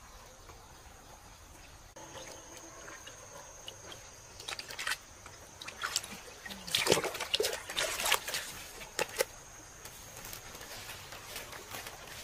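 Water splashing in a plastic bucket of live fish as they are handled, a run of short splashes in the middle, the loudest about seven seconds in.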